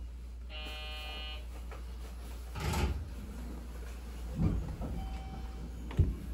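Commuter train's sliding doors closing: a short electronic tone, then three thuds as the doors shut, the last a sharp clack, over the train's steady low hum.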